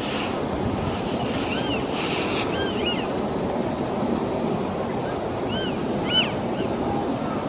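Eastern marsh harrier giving short, faint, arched whistled calls several times, over a steady rushing background noise.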